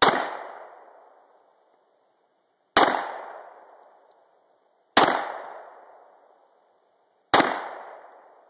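Four gunshots, a little over two seconds apart, each followed by a decaying echo.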